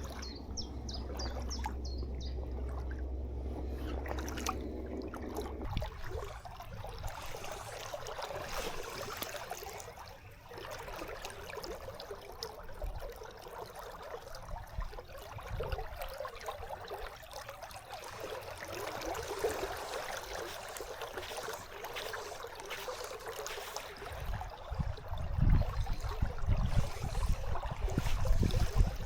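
River water flowing and trickling, a steady rush of running water. A low rumble sits under it for the first six seconds and comes back near the end.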